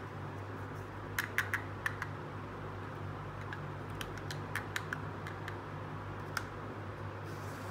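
Small hard plastic toy pieces, pink toy ice-cream bars, clicking and tapping as they are handled and set down. A quick run of four clicks comes about a second in, a few more scattered clicks follow in the middle, and one comes near the end, over a steady low hum.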